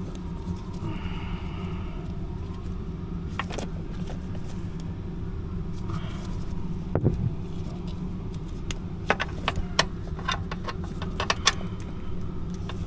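Small metal clicks and clinks as a nut is worked onto a brass airline fitting by hand. The clicks come thick and sharp in the second half, over a steady low vehicle rumble.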